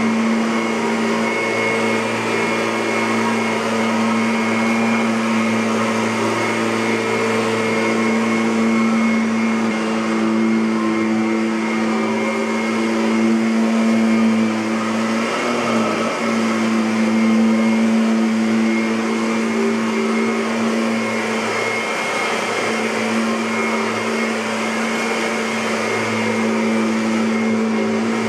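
Kirby Avalir G10D upright vacuum cleaner running steadily, a constant motor hum with a brief dip and wobble in pitch about halfway through.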